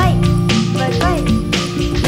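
Background music with a steady beat, a held bass line and short gliding notes.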